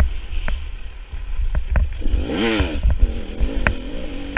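Dirt bike engine revving up and falling back about two seconds in, with several sharp clacks scattered through the ride.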